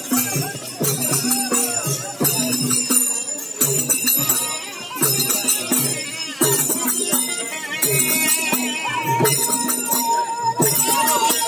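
Live traditional Odia folk-drama music: a steady drum beat under continuous jingling of small cymbals or bells, joined about eight seconds in by a held, slightly wavering melody note.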